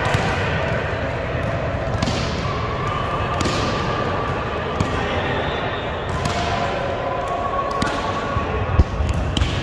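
Volleyball being struck several times, sharp smacks at irregular intervals with the echo of a gym hall. The loudest comes near the end, over a steady background of players' and spectators' voices.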